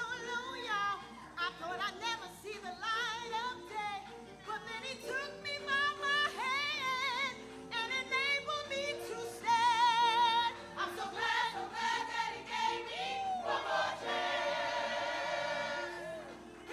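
Gospel choir singing: a lead voice with wide vibrato over sustained chords underneath, ending on a long held, wavering note.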